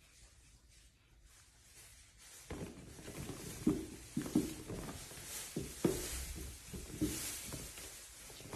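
Irregular soft thumps and knocks from two cats play-fighting on a hanging two-tier cat hammock, paws and bodies bumping the fabric shelves and their frame, starting about two and a half seconds in.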